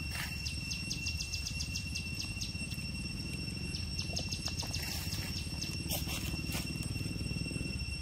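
Forest insects droning on two steady high pitches, with two runs of rapid ticking chirps at about eight a second, over a low rumble and a few short clicks.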